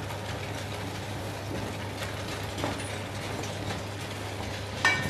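White sauce sizzling steadily in a non-stick frying pan on the stove as shredded chicken is tipped in, with a steady low hum underneath. Near the end a spoon starts to scrape against the pan.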